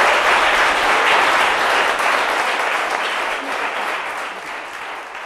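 Audience applauding, the clapping slowly dying down over the second half.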